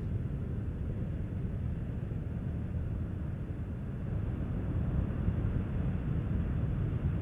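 Space Shuttle Endeavour's rocket boosters and three main engines heard from afar as a steady low rumble during ascent, the main engines throttled back to two-thirds for the passage through maximum aerodynamic pressure. The rumble grows a little louder about four seconds in.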